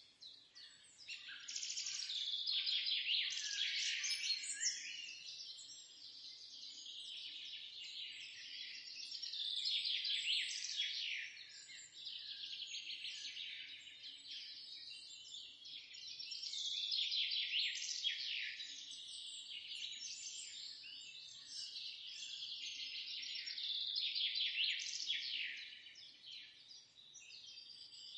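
Many small birds chirping and twittering at once in a dense chorus of quick, high calls. The chorus swells louder and fades back every several seconds.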